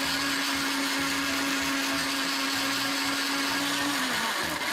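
Electric blender running at its highest speed setting, blending a lump of toy slime: a steady motor whine with a whirring rush above it. About four seconds in the pitch sags and the whine fades.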